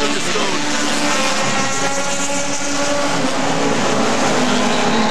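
Mini Stock race cars' engines running at racing speed around the oval, several engine notes overlapping as the pack passes.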